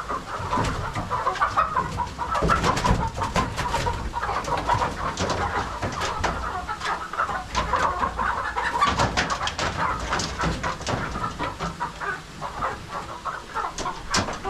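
A flock of chickens clucking continuously, with many short clicks and scuffs mixed in.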